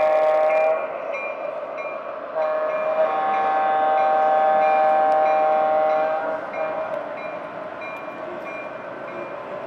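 Model diesel locomotive's onboard sound system blowing its horn: one blast cuts off under a second in, then a second long blast from about two and a half to six seconds. Its bell rings about twice a second throughout, over the rumble of the train running on three-rail track.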